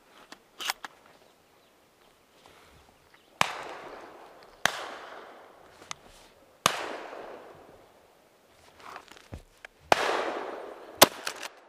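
Shotgun shots during a bird shoot: five sharp reports spread over about eight seconds, several trailing off in a long rolling echo. The last, about eleven seconds in, is the loudest and sharpest.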